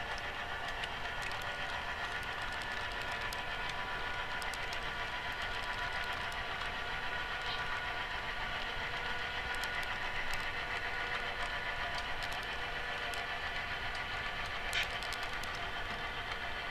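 HO scale model freight cars rolling steadily along the track, a continuous rolling hum of small wheels on rail with a few sharp clicks, the clearest near the end.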